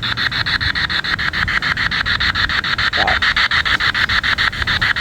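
Radio-sweep ghost box (SBox Ghost Scanner) scanning through stations: a steady hiss of static chopped into fast, even clicks about eight or nine times a second, with a brief fragment of sound about three seconds in.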